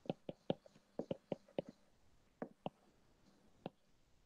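A stylus tip tapping and clicking on a tablet's glass screen during handwriting: about ten short, sharp, irregular clicks in small clusters, with pauses between them.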